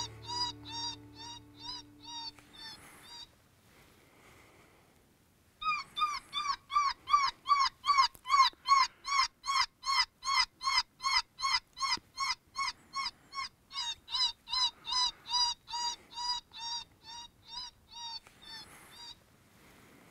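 Predator call sounding a prey-distress cry to lure coyotes: a rapid run of wailing, squealing notes at about three a second. It breaks off briefly a few seconds in, then resumes and runs on steadily.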